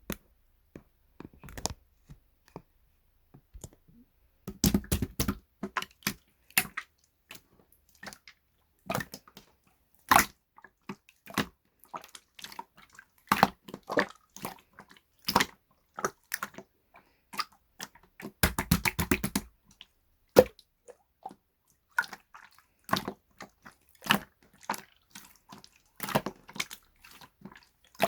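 Irregular sharp clicks and taps, a few a second with short gaps, with two brief clusters of heavier, rapid knocks about a quarter of the way in and again past the middle.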